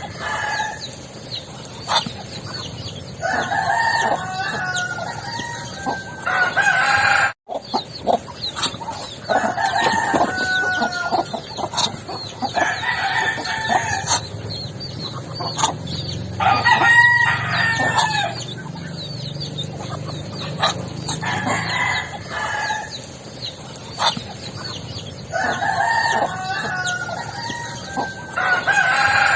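Backyard poultry calling: drawn-out calls a second or two long, repeated every few seconds, with many short calls in between and a brief dropout about seven seconds in.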